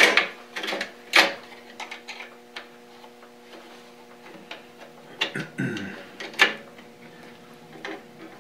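Small steel dust-cover plates clinking and knocking against the grinder's metal parts as they are handled and positioned, a string of separate sharp clicks over a faint steady hum.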